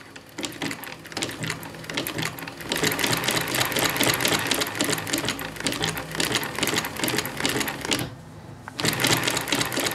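Merrow 18-E single-thread crochet stitch industrial sewing machine, servo-driven, running and stitching yarn along the edge of two layers of fleece: a rapid, even clatter that picks up speed about three seconds in, stops briefly near the end, then starts again.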